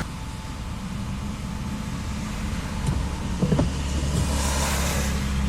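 A car's engine and road noise, heard from inside the cabin as a steady low rumble, with a swell of hiss between about four and five seconds in.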